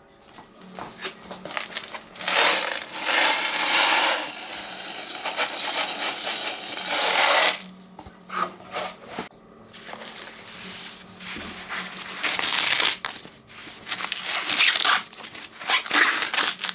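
Ears of sweet corn being husked by hand: dry husks rustling and tearing in spells of a few seconds, with short pauses between.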